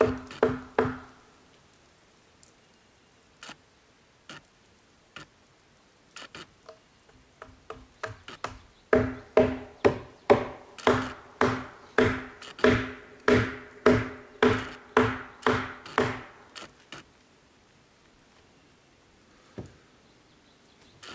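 Hammer striking wood on a log wall: a few blows at first, then scattered light taps, then a run of about sixteen hard blows at roughly two a second, each with a short ringing note.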